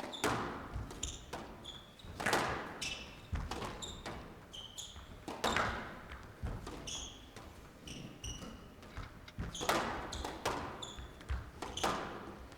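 Squash rally: the ball cracks off rackets and thuds against the court walls at irregular intervals, with shoes squeaking on the court floor between shots, echoing in the glass court.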